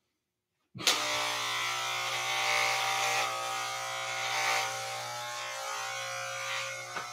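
Electric hair clippers switch on about a second in and buzz steadily, the buzz roughening as they cut through hair.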